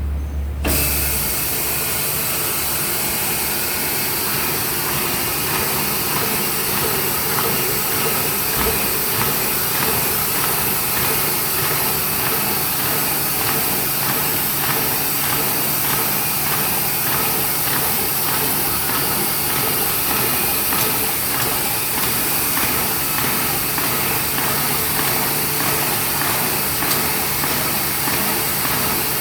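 1998 Stahl B20 pile-feed paper folding machine running: a loud, steady mechanical whir with a fast, even clatter, coming on suddenly just after the start.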